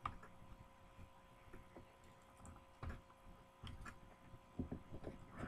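Scattered faint clicks and taps of a Hot Wheels blister pack being handled and pried open, coming more often in the second half, over a faint steady hum.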